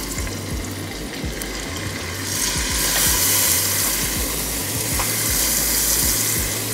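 Fish fillets sizzling in hot olive oil in a frying pan. The sizzle grows louder about two seconds in as more pieces are laid into the oil.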